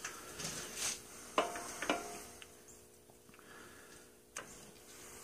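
A few scattered light clicks and taps of metal tools being handled at the mill, over a faint steady hum.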